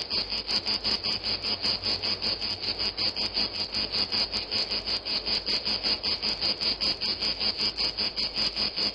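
Insect chirping in a fast, even rasping pulse, about seven pulses a second, with a high steady ring.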